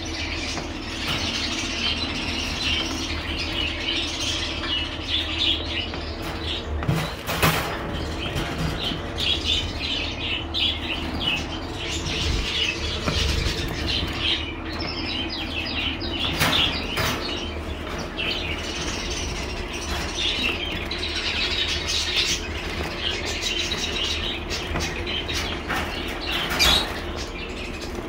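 A cage of finches, Gouldian finches among them, chirping and twittering without a break. Now and then there is a brief flutter of wings.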